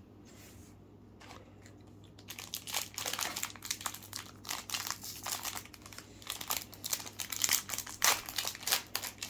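Plastic wrapper of a 2020 Chronicles football card pack crinkling and tearing as it is opened, with dense irregular crackles starting about two seconds in after a quiet start.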